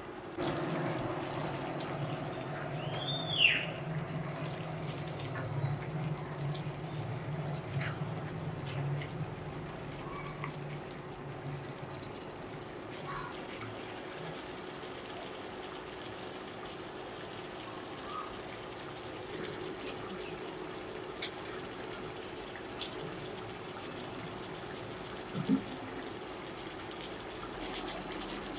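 Chicken curry simmering in a stainless steel pot, the sauce bubbling with scattered small pops over a steady low hum from the cooker. A short whistle-like chirp comes about three seconds in.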